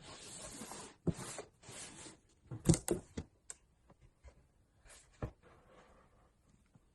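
Packaging being handled and unwrapped: rustling with a few sharp knocks, the loudest near the middle.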